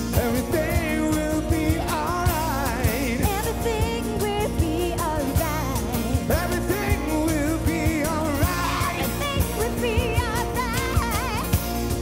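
Live acoustic band: strummed acoustic guitars, one a twelve-string, under singing with a wavering vibrato and percussion keeping a steady beat.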